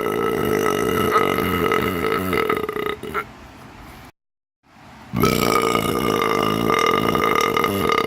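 Two long, loud burps in a row. The first is already under way and stops about three seconds in; after a moment of silence a second one begins about five seconds in.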